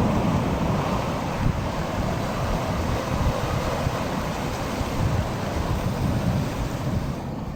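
Sea surf washing onto a beach, a steady rushing hiss, with wind buffeting the microphone in low gusts. The hiss eases near the end.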